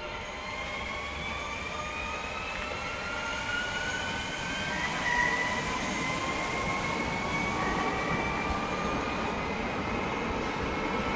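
Alstom Régiolis multiple unit pulling away from the platform and passing close. Its traction drive gives several slowly rising whines over a steady rumble and rush of wheels, growing louder through the first half as it draws level.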